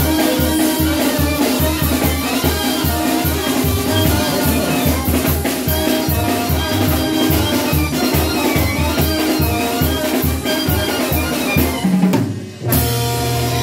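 Brass band playing dance music with a steady, driving drum beat and brass lines. It breaks off for a moment near the end and comes back in on long held low brass notes.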